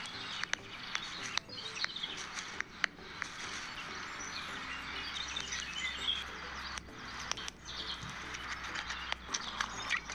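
Birds chirping over a steady hiss, with scattered sharp clicks.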